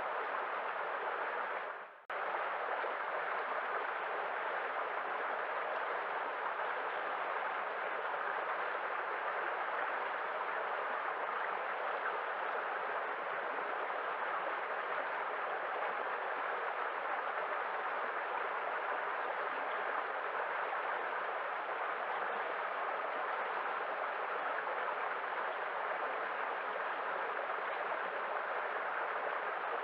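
Steady rushing of a waterfall. About two seconds in it briefly fades almost to nothing, then cuts straight back in.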